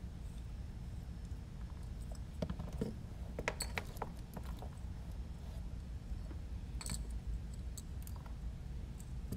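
Light clicks and clatter from a small FPV quadcopter frame and its parts being handled and turned over on a silicone work mat: a cluster of clicks between about two and a half and four seconds in, and another near seven seconds.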